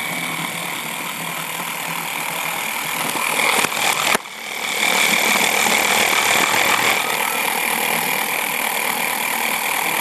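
Light-up toy spinning top whirring steadily on a hard floor, with a steady high whine. A sharp click about four seconds in, after which the sound briefly drops and then builds back up.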